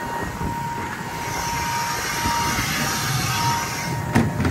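Wind buffeting the microphone over a steady machine hum, with a sharp click about four seconds in as the latch on a planter row unit's seed hopper lid is worked.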